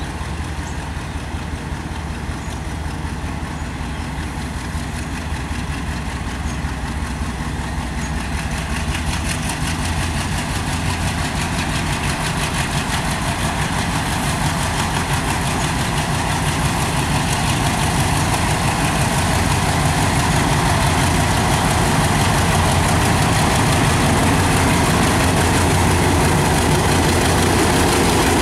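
Indian-built ALCO diesel-electric locomotive running at low power as it rolls slowly toward the listener, its engine's steady low hum getting louder and fuller as it draws near.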